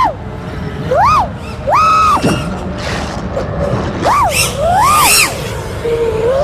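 FPV freestyle quadcopter's motors and propellers whining, the pitch shooting up and dropping back about four times as the throttle is punched and released.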